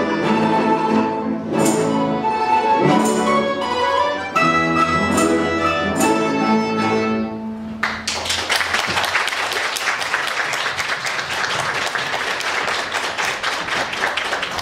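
Russian folk instrument ensemble playing the closing bars of a lively folk piece and ending on a held chord, followed about eight seconds in by audience applause.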